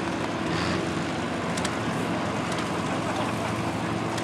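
Allis-Chalmers Model G tractor's small four-cylinder gasoline engine running steadily as the tractor drives slowly.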